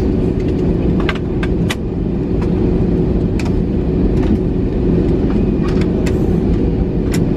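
Cabin noise of an Airbus A321-211 at take-off: its CFM56 jet engines running at high thrust give a loud, steady rumble with a constant hum, and sharp rattles and knocks from the cabin fittings come through every second or so.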